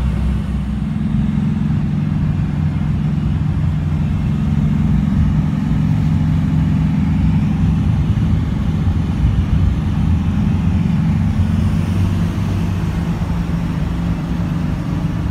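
Steady road noise of a car moving at highway speed, heard from inside the cabin: an even, low rumble of tyres and engine.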